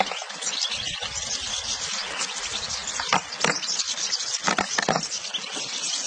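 A large mass of European goldfinches chirping all at once, making a dense, high twittering, with a few sharper knocks about three and five seconds in.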